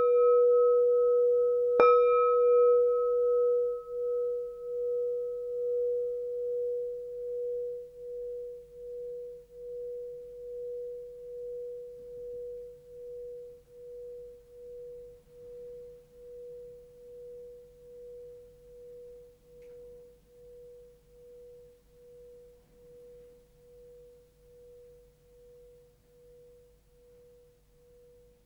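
A bell struck once about two seconds in, its low tone ringing on and fading slowly with a steady pulsing waver until it is barely audible.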